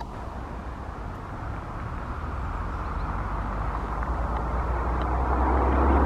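A vehicle approaching, its steady noise and low rumble growing louder.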